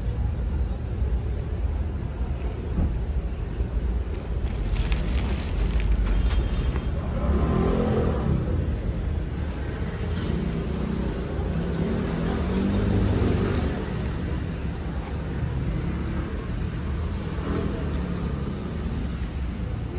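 Steady low rumble of road traffic, with louder vehicle passes about eight seconds in and again around thirteen seconds.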